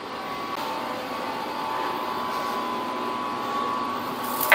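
Steady mechanical hum with a few faint steady tones, like a fan or air-handling unit running in the shop, with a sharp knock right at the end.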